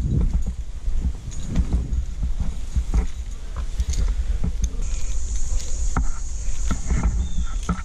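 A climber hauling himself up a rope: irregular clicks and knocks of the rope and climbing gear under his hands, over a heavy rumble of wind and movement on the helmet-mounted microphone. A steady high buzz joins about five seconds in.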